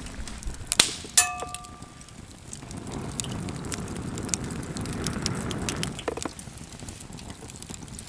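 Wood fire crackling and popping in a metal fire pit. About a second in there is a sharp metallic clink that rings briefly. From about three to six seconds in comes a low rushing sound of air blown into the flames through a fire-blowing pipe.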